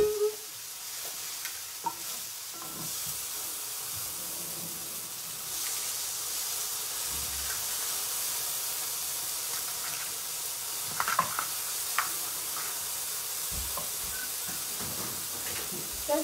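Steady sizzling hiss of food frying in a pan, growing louder about five seconds in, with a few light clicks around eleven seconds in as eggs are cracked by hand over a glass bowl.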